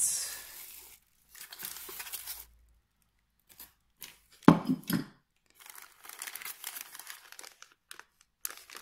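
Plastic packaging of a new ATV winch kit being torn open and crinkled, in several rustling stretches, with a brief knock about halfway through as parts are handled.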